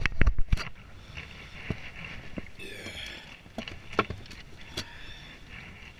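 Thumps and knocks on a small fishing boat's deck: a few heavy thumps right at the start, then scattered light knocks over low wind and water noise.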